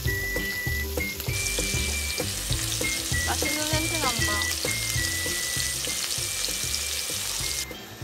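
Meat sizzling as it cooks, a dense hiss that starts about a second in and cuts off abruptly near the end, under background music with a steady beat.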